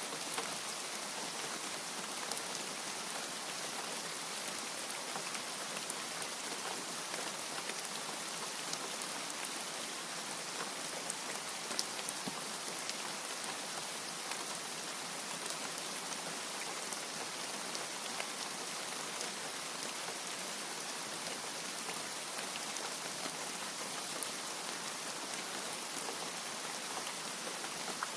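Steady rain falling, with a constant hiss and many individual drops ticking on a surface.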